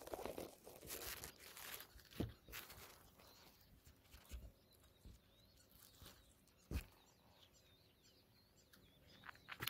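Faint crackling and rustling of dry grass close to the microphone, in scattered bursts that are busiest in the first few seconds, with a sharp click a little before the end. Faint high, wavering bird calls come in near the end.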